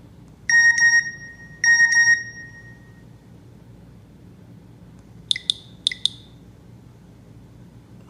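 Nokia E90 phone playing short alert tones through its loudspeaker: two brief steady beeps about a second apart, then a quick cluster of four short high chirps a few seconds later.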